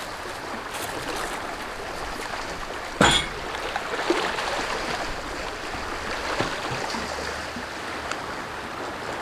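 Steady rush of moving water, with a single sharp knock about three seconds in.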